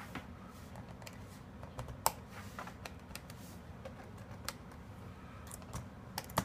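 Scattered light plastic clicks, the loudest about two seconds in, as the keyboard retaining tabs along the top edge of an HP ProBook 6550B laptop are pulled down with a small tool, against the keys and plastic frame.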